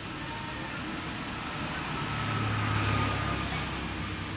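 A motor vehicle's engine hum over general traffic noise. It swells about halfway through and eases off near the end, like a vehicle passing.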